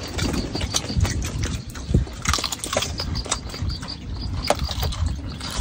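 Close-up mouth sounds of a person eating fish by hand: irregular lip smacks and chewing clicks as the flesh is picked off and bitten.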